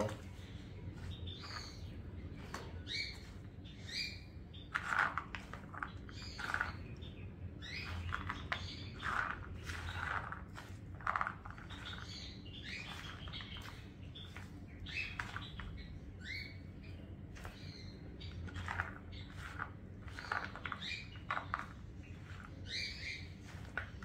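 Pet birds chirping in short, scattered calls throughout, over a steady low hum.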